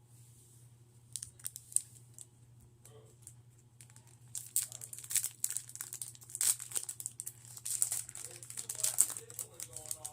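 A Pokémon booster pack's foil wrapper being crinkled and torn open. A few sharp crackles come about a second in, and dense crinkling runs through the second half.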